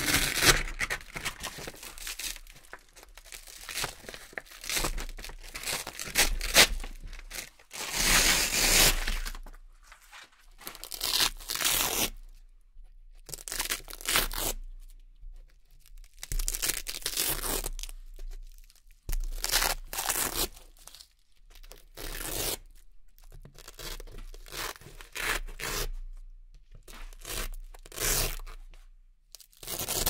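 Velcro hook-and-loop strips being peeled off a Velcro-covered board: a series of crisp ripping tears, one every second or two, with short pauses between.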